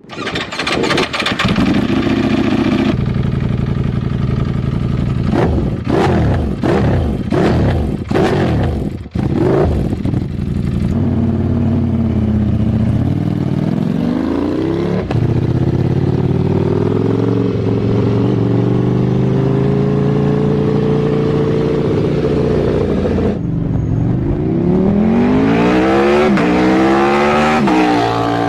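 Ducati Panigale V4's V4 engine running through an aftermarket exhaust. It idles briefly, is blipped in several sharp revs, climbs and is held at high revs for several seconds, drops, then is revved up again before cutting off suddenly.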